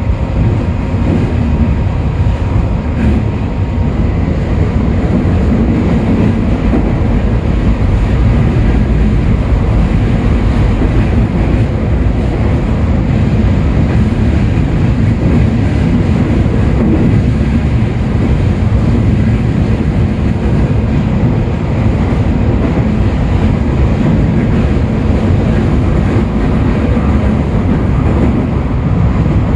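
Running noise inside a Toei 5500 series subway car travelling at steady speed through a tunnel: a constant low rumble of wheels and running gear on the rails.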